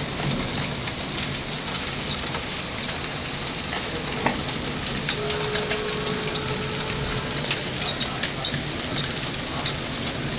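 Hail falling with heavy rain: a steady hiss of rain with many sharp, irregular ticks of hailstones striking the ground.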